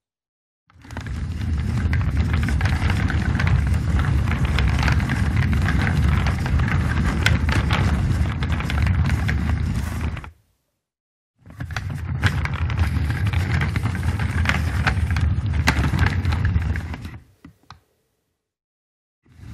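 Office chair rolling on its casters: a low rumble with light rattles and clicks, in two long rolls of about ten and six seconds, each fading in and out.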